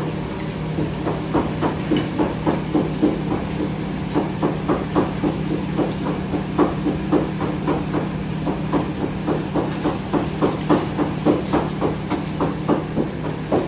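A utensil rhythmically beating eggs in a metal frying pan, about three quick strokes a second, starting about a second in. Underneath is a steady low hum.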